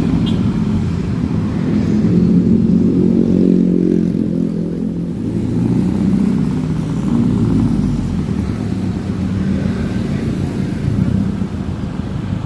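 Honda ADV 150 scooter's single-cylinder engine running while being ridden, its note rising and falling with the throttle.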